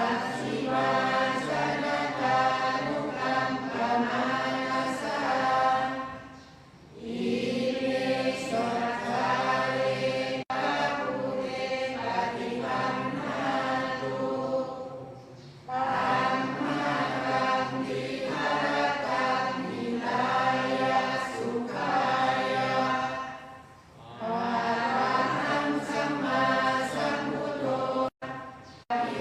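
Thai Buddhist evening chanting: a group of voices chanting Pali verses in unison on a near-monotone, with short pauses for breath about every eight seconds.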